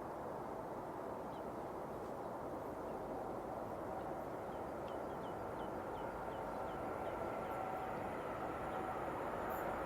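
Train approaching along the line at a distance: a steady rumbling hiss that slowly grows louder, with faint thin tones coming in during the second half. A bird chirps a quick run of short calls about halfway through.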